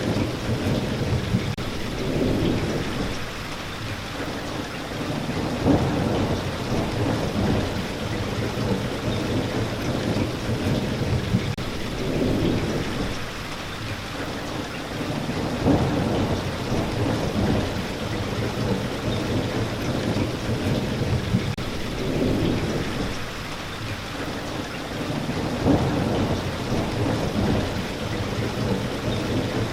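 Steady rain falling, with rolling thunder rumbling underneath that swells and peaks about every ten seconds.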